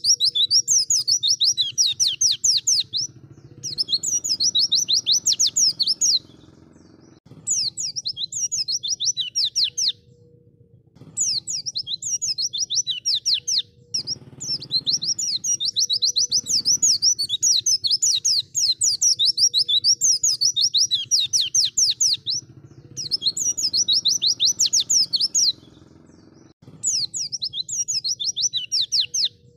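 White-eye (pleci) song: rapid, high chattering trills of fast-sweeping notes, given in bouts of a few seconds with short pauses between them.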